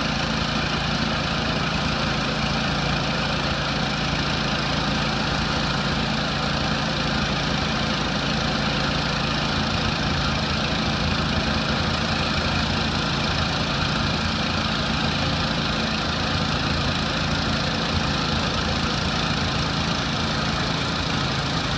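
Pressure washer engine running steadily under the even hiss of high-pressure water spray.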